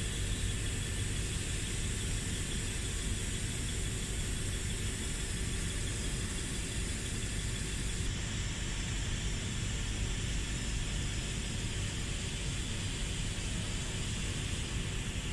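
Steady mechanical hum and hiss of factory machinery, with a constant low drone and no press blows or other impacts.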